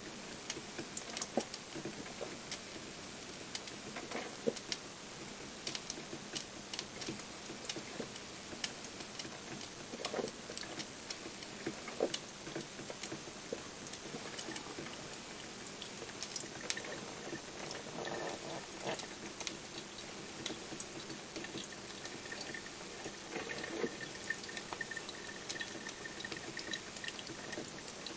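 Krups XP1500 drip coffee maker brewing: coffee dripping into the glass carafe with an irregular light patter.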